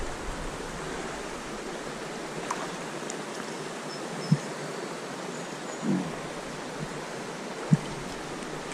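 Steady rush of flowing water in a trout stream, broken by two short low thumps, about four and a half and seven and a half seconds in.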